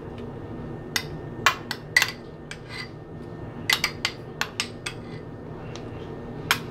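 A metal spoon taps and scrapes against glassware, knocking ginger garlic paste out of a small glass bowl onto raw beef. About a dozen sharp, irregular clinks come mostly in the middle, over a steady low hum.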